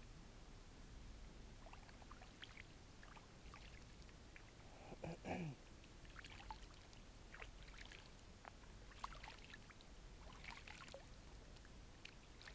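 Faint water sloshing and dripping with scattered small clicks and splashes as a carp is held in the shallows of a lake and let go, with one short louder sound about five seconds in.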